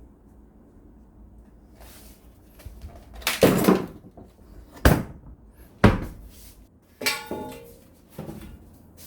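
A handful of sharp knocks and clacks of hard objects being handled and set down, the last followed by a short rattling ring.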